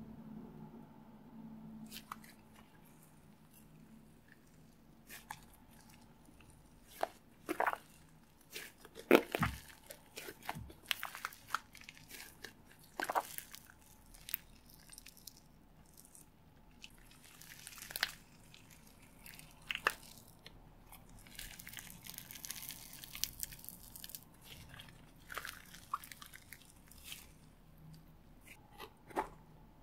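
Thick old slime being squeezed, folded and stretched by hand, giving irregular sticky crackles and small pops, the loudest about nine seconds in.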